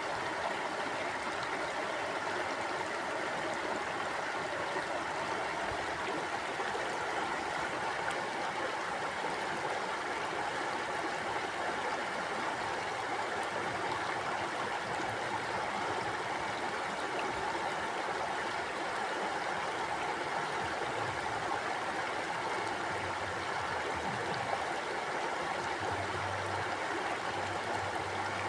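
Mountain river flowing steadily, a continuous rush of water over rocks with some gurgling.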